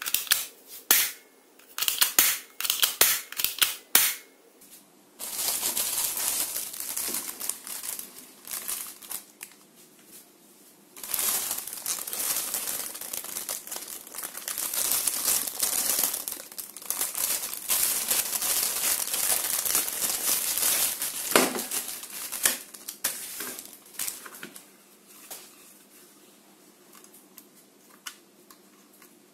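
Several sharp plastic clicks from a toy pistol worked in the hands, followed by long loud crinkling and tearing of the clear plastic bag packaging as it is opened. Only light handling noise remains near the end.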